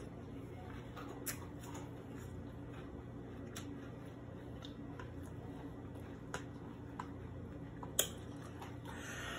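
Close-up chewing of a mouthful of cereal soaked in milk: soft wet mouth clicks and squishes now and then, with a sharper click about eight seconds in, over a faint steady hum.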